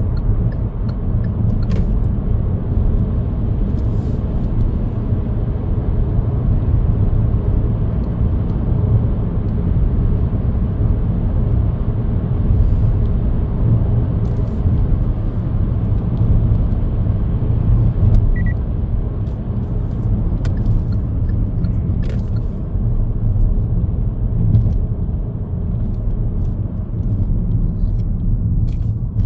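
Car driving on the road: a steady low rumble of tyres and engine, with a few faint clicks and a short high beep about 18 seconds in.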